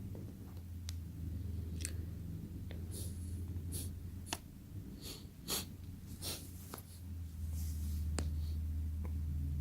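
About a dozen light, irregular clicks and taps from handling a phone and its small parts, over a steady low hum.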